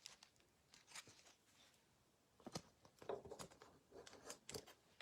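Faint rustling, tearing and small clicks of cardboard and wrapping as a trading-card hanger box is opened, most of it about three seconds in; otherwise near silence.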